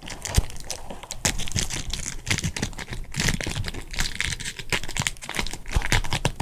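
Foil wrapper of a Japanese Pokémon card booster pack being torn open at its crimped seal and crinkled in the fingers: a dense, irregular crackling.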